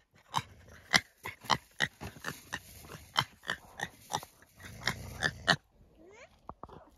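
Quick, irregular snuffling puffs, about three or four a second, from a piglet and a dog sniffing at each other nose to nose; they stop about five and a half seconds in.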